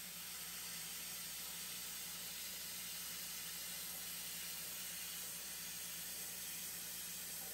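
Handheld plasma cutter cutting steel plate along a slight curve: a steady hiss from the torch, with a faint low hum under it.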